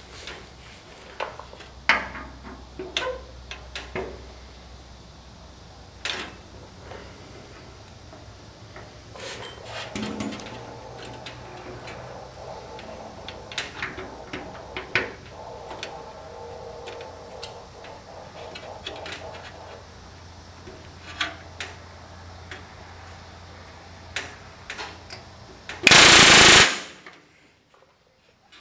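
Scattered light metallic clicks and taps of hand work on the aluminium wing spar, then about 26 seconds in a single loud burst of under a second from a pneumatic rivet gun driving a rivet.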